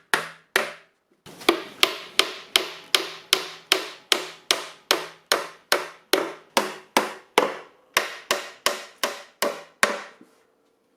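Hammer driving tacks into the wooden panels of a bee hive nuc box: a steady run of sharp taps, about three a second, with a short pause about a second in and the strikes stopping shortly before the end.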